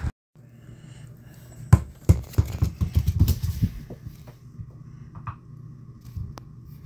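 A springer spaniel puppy playing with a toy on a laminate floor: a run of sharp knocks and scrapes, busiest in the first half, over a steady low room hum.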